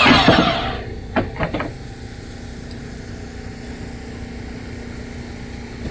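A motor is switched off and winds down, its pitch falling over under a second. A few short knocks follow about a second in, and a quieter steady engine hum carries on underneath.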